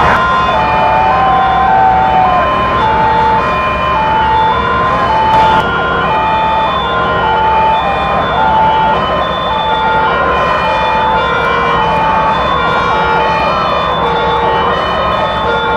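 Fire truck two-tone sirens sounding, alternating high-low about every half second, over a steady dense noise.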